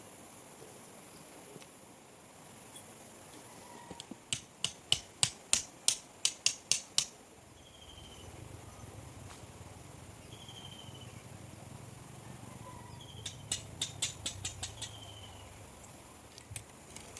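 Two runs of sharp clicks, about three a second, each lasting two to three seconds, over a faint steady high-pitched hum; a low rumble comes in between the two runs.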